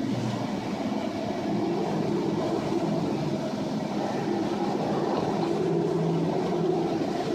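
Steady low rumble and rushing noise aboard an anchor ship in heavy seas, with engine, wind and water blended into one unbroken drone.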